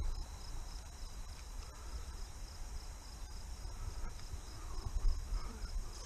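Low wind rumble on the microphone, with crickets chirping in a fast, even pulse in the background.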